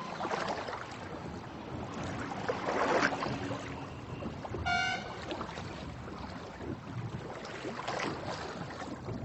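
Outdoor traffic noise, a rushing sound that rises and falls, with a short high beep near the middle.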